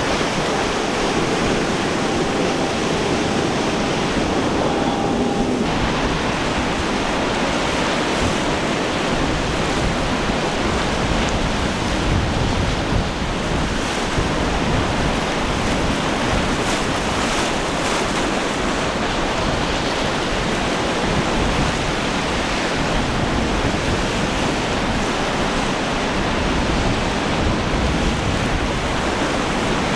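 Rough seas: the steady rush of breaking waves and churning water, with wind buffeting the microphone.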